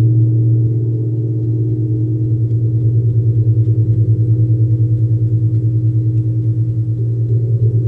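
Large bronze gong played with a felt-headed mallet, giving a sustained deep hum that pulses evenly at about five beats a second.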